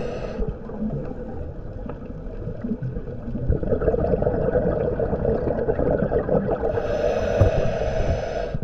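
Scuba regulator breathing heard underwater: a steady gurgling rush of exhaled bubbles, with the hiss of a breath drawn through the demand valve briefly at the start and again from about seven seconds in.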